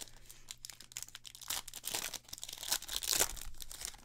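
Trading card pack wrapper being torn open and crinkled as the stack of cards is pulled out, a dense crackling rustle that is loudest near the end.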